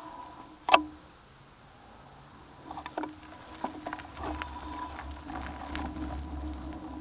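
Bicycle rolling over a rough dirt track onto asphalt: one sharp knock about a second in, then scattered clicks and rattles, and a low tyre rumble in the second half.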